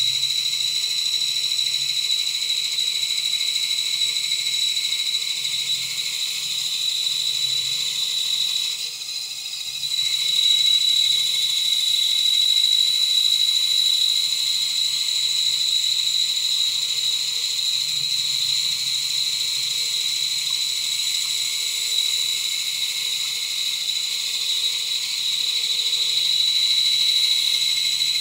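Bandsaw resawing a board into thin quarter-inch planking stock: a steady high whine of the blade cutting through the wood, with a brief dip about nine seconds in.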